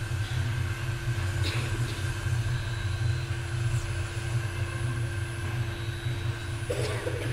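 Steady low rumble with a constant hum tone above it, and a few faint brief rustles.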